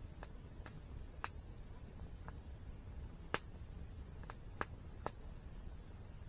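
Campfire wood crackling: sharp, irregular pops, about eight of them, over a low steady rumble.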